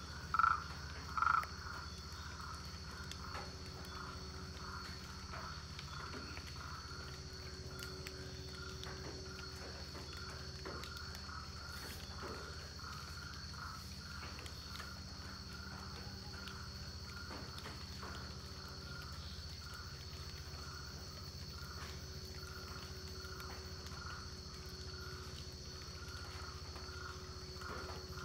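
Rainforest frogs calling: short croaks repeated about two a second, loudest in the first second or so, then going on more faintly. Under them runs a steady high insect drone.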